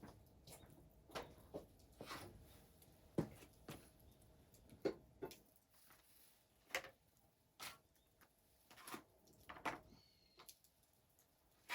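Scattered soft knocks and clicks at irregular intervals, about one a second.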